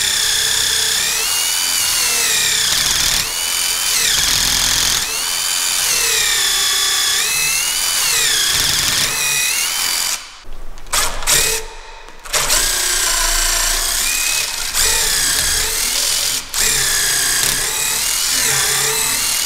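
Cordless brushless drill driving a stubby bit through a right-angle attachment, boring through the wooden newel post into the handrail. The motor whine rises and falls in pitch as the bit bites and eases off, with two short pauses about ten and twelve seconds in.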